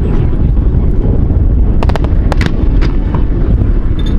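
Fireworks going off under heavy wind buffeting on the microphone. A quick cluster of sharp cracks comes about two seconds in, then a few single bangs, over a constant low wind rumble.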